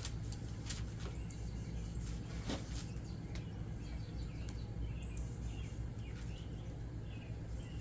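Outdoor ambience: a steady low hum with birds chirping faintly, and a few soft clicks or taps, about a second in and near the middle.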